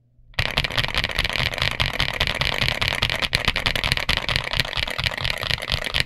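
Fast two-handed typing on a Story65 R3 mechanical keyboard with Zuoce Litchi Milk switches and GJ Jockey DS PBT keycaps: a dense, unbroken clatter of keystrokes that starts abruptly a moment in, after a brief silence.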